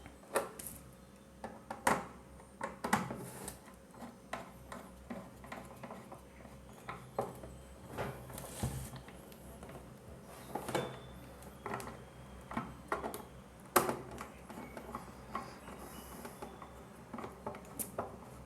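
Irregular small clicks, taps and handling noises of hands working on electrical wiring, fastening cable wires into their terminals.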